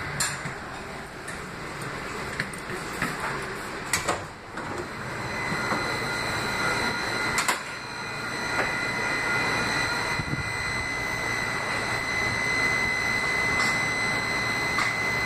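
Kinki Sharyo light rail car standing at a station with its sliding doors working: sharp clunks at about four and seven and a half seconds over the car's steady rumble. From about five seconds in, a steady high-pitched tone sounds continuously.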